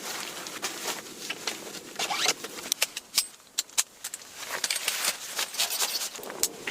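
A run of irregular sharp clicks, taps and short rustles, unevenly spaced, like small objects being handled close by.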